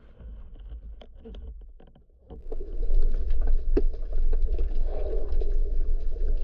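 Muffled underwater sound picked up by a camera in its housing: a few faint clicks and knocks, then from about two seconds in a loud rushing rumble of water and bubbles as the diver swims up toward the surface.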